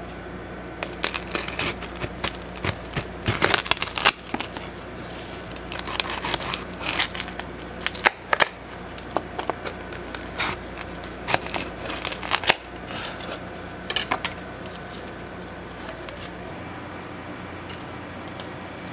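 A knife cracking through the hard candy shell of a whole candy apple and slicing the apple on a cutting board: a run of sharp, irregular cracks and crunches that stops about three-quarters of the way in.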